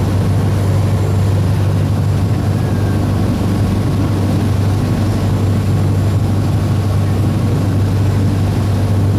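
Steady low drone of a ship's engines and machinery, unchanging throughout, with a faint high whine held above it.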